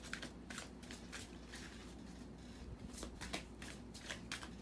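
Oracle cards being handled in the hands: a string of soft, irregularly spaced crisp clicks and rustles.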